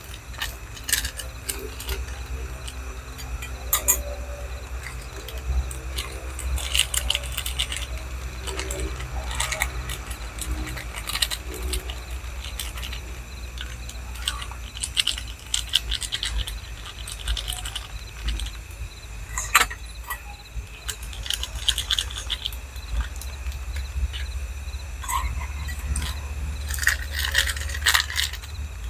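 Plastic instant-coffee sachets crinkling as they are handled, torn open and tipped into a mug, with scattered clicks and light clinks in irregular clusters over a steady low rumble.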